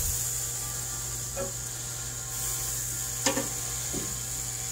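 Chicken drumsticks sizzling over hot charcoal on a grill grate, with a few light clicks of metal tongs against the grate as the legs are moved.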